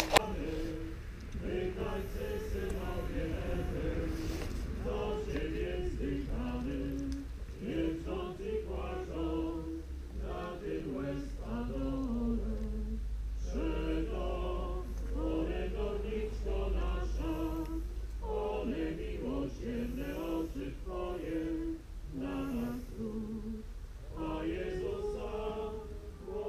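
A congregation of men and women singing a funeral hymn together without instruments, over a low steady rumble.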